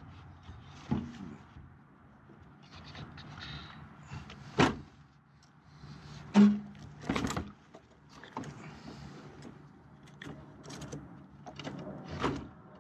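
A 12-volt battery being handled and set into a generator's sheet-metal battery compartment: scattered knocks, scrapes and clunks of the battery case against the metal housing, the loudest a thump about six and a half seconds in.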